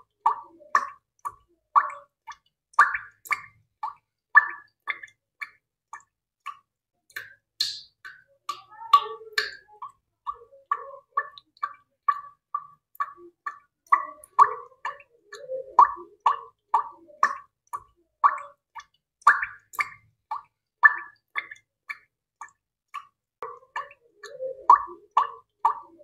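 A run of short, pitched plopping sounds, about three a second, mostly on one high note, with brief groups of lower plops every ten seconds or so.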